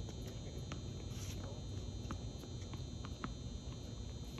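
Open-air background at a tennis court between points: a steady low rumble and a faint high steady hum, with a few faint, light taps scattered through it.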